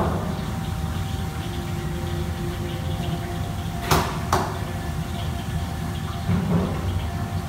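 Steady low rumble of a commercial kitchen's wok range and extraction hood, with two sharp clanks of metal cookware close together about four seconds in and a softer knock near the end.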